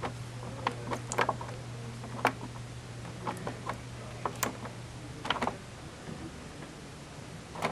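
Plastic control-panel buttons and arrow keys on a Canon PIXMA inkjet printer clicking under a finger, a dozen or so irregular presses, over a steady low hum.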